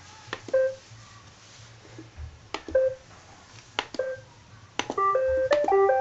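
iRobot Roomba robot vacuums' CLEAN buttons pressed one after another, each press a sharp click followed by a short electronic beep. Near the end, several quick pitched beeps overlap into short start-up melodies as the Roombas begin cleaning.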